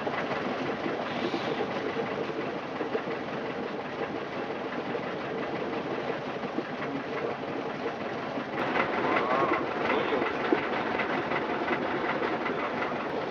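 Motorboat engine running steadily, heard from inside the boat's cabin. It grows louder for a couple of seconds about two-thirds of the way through.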